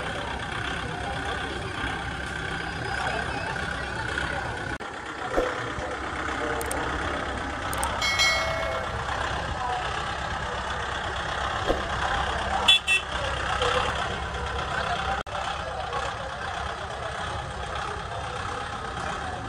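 Kubota tractor's diesel engine running steadily as the tractor drives slowly, against a background of crowd chatter. A short toot with several overtones sounds about eight seconds in, and there are a few faint knocks.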